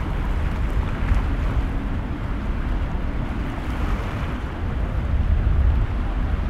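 Wind buffeting the microphone over the steady running of a boat's engines, with the wash of waves.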